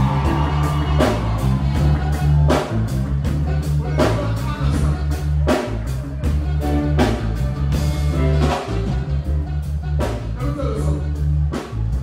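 Live band playing a reggae/dancehall riddim: a heavy repeating bass line, a steady drum-kit beat about twice a second and electric guitar, with a voice singing over it.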